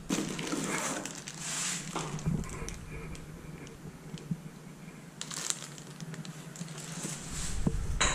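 A cardboard bike box being opened and its packing handled: cardboard rubbing and scraping, plastic wrap crinkling, and a few sharp knocks near the end.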